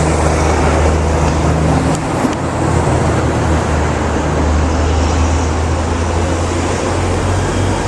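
Motor vehicle engines running steadily with a low hum, under a continuous rushing noise, and a brief click about two seconds in.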